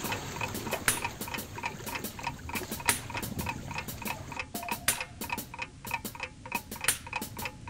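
A series of short, sharp clicks, irregularly spaced and coming thicker from about halfway through.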